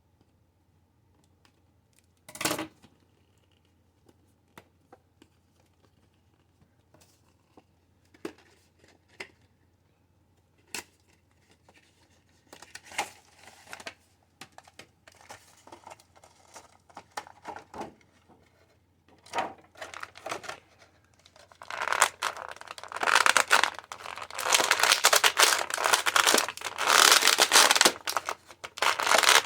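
Action-figure box being opened and its packaging handled: a sharp tap about two seconds in, scattered small clicks and rustles, then from about three-quarters of the way through, continuous loud crinkling and tearing of the packaging.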